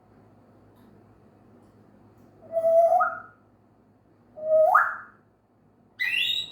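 African grey parrot whistling: two rising whistles a couple of seconds apart, then a shorter, higher call near the end.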